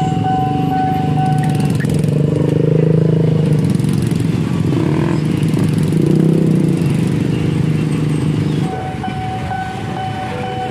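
Level-crossing warning alarm sounding with steady tones, stopping about two seconds in. Many motorcycle engines run and rev in the waiting crowd, dropping back when the crossing alarm starts again near the end.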